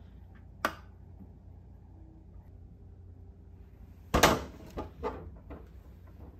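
A wall light switch clicks once. About three and a half seconds later a round doorknob is grabbed and turned, its latch rattling, followed by a few smaller knocks from the door.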